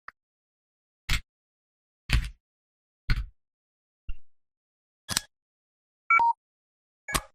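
Huawei EMUI 3.1 phone system sounds played one after another, about one a second: short clicks and taps, and just after six seconds a quick falling three-note blip.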